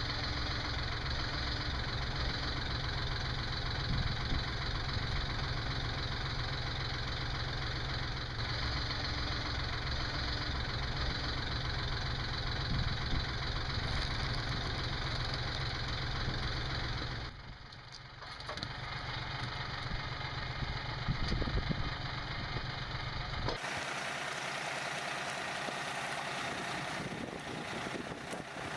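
Tractor engine running steadily to drive a PTO hydraulic log splitter, dipping briefly about two-thirds of the way through. Soon after, the sound changes abruptly to a thinner, hissier engine sound.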